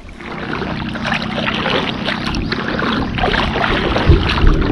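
Spinning reel being cranked to retrieve a light 5-gram lure: a steady gear whir over the wash of water, with a low thump about four seconds in.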